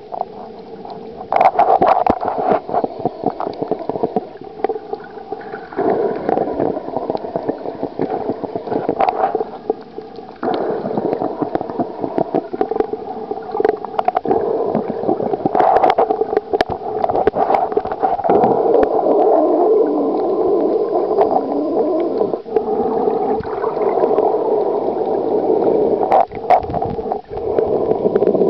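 Muffled underwater gurgling and sloshing, picked up through a submerged camera held by a snorkeler, with scattered clicks and knocks.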